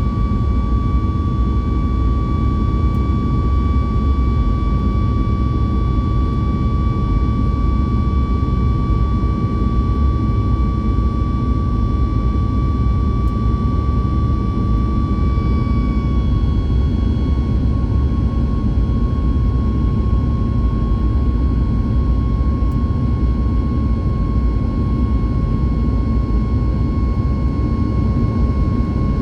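Inside the cabin of a Boeing 737 MAX 8 with its CFM LEAP-1B turbofans under power: a loud, steady rumble with a steady engine whine over it. The whine drops slightly in pitch a little past halfway.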